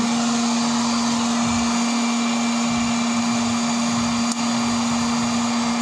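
Electric popcorn maker running: a steady motor hum with an even rushing noise, and one sharp click about four seconds in.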